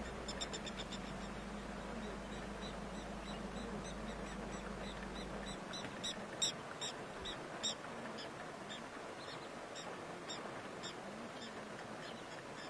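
Short, high-pitched animal chirps repeated in quick series, loudest about six to eight seconds in, over a low steady hum that stops about five and a half seconds in.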